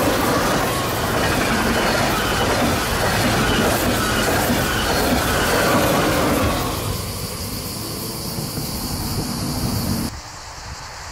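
OUIGO TGV Duplex double-deck high-speed train passing at speed, a loud rush of wheels on rail and air that dies away as the last car goes by about seven seconds in. After a sudden change about ten seconds in, only faint wind noise remains.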